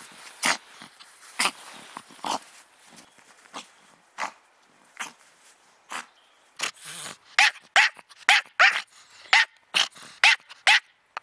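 Pomeranian barking: short, sharp barks scattered through the first half, then a quick run of loud, high-pitched yipping barks, about two a second.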